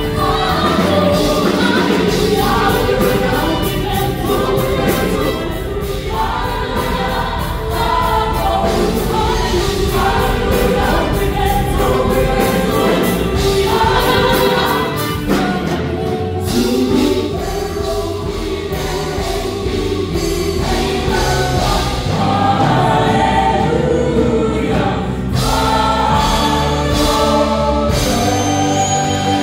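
A mixed vocal group of seven men and women singing together in harmony through microphones, over amplified instrumental accompaniment with a steady beat.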